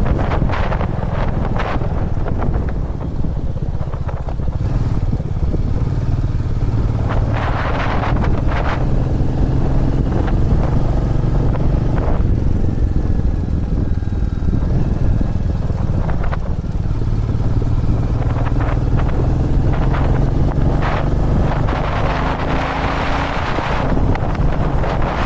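Royal Enfield Meteor 350's single-cylinder engine running while riding, its pitch rising and falling with throttle and gear changes. Gusts of wind noise hit the microphone, heaviest near the end.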